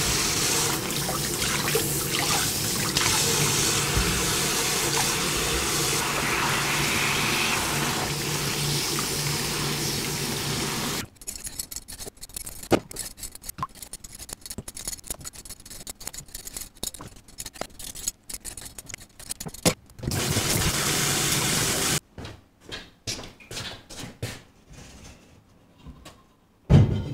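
Kitchen tap running hard onto mushrooms in a pot in a stainless-steel sink. About eleven seconds in the water stops and a peeler scrapes a potato, with small clicks. The tap runs again briefly, then come scattered knocks and one heavy thump near the end.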